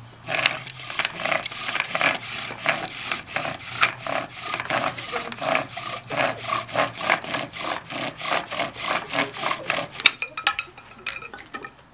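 Bow drill in use: a wooden spindle rasps and squeaks in the notch of a wooden baseboard as the bow is sawn back and forth, about three to four strokes a second. About ten seconds in comes a sharp knock, the loudest sound, and the strokes stop: the spindle has popped out, a sign of a bow strung too tight.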